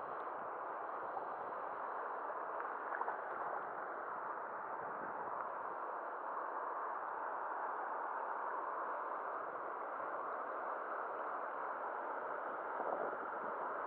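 Steady rush of fast river water flowing through a rapid.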